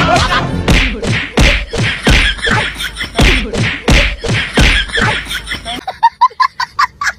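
A rapid run of whacks and thuds from a staged beating with sticks, mixed with a thumping music beat. About six seconds in it gives way to a quick run of short, high-pitched blips.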